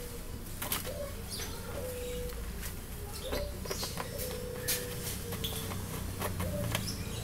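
Doves cooing over and over, a string of short low coos, with sharp clicks and knocks from plastic bottles being handled.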